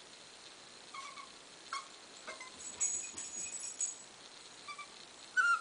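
Seven-week-old corgi puppy whimpering: several short, high-pitched whines, with a louder one near the end, from a puppy hesitating to step down a stair.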